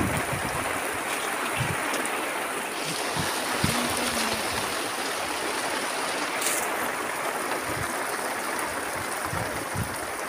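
Steady rain falling on a field and a thatched roof, an even hiss throughout.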